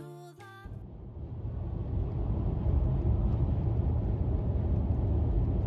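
Car driving at speed on an expressway, heard from inside the cabin: a steady low rumble of road and tyre noise. It swells in about a second in, as a piece of music ends.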